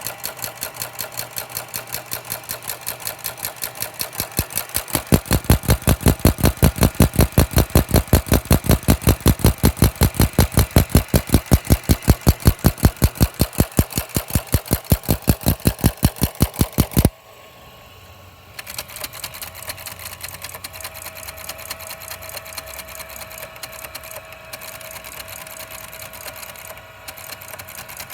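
Teletype machine clattering rapidly and evenly as its paper tape reader runs. The clatter grows louder about five seconds in, stops suddenly after about seventeen seconds, then resumes more quietly a second or two later.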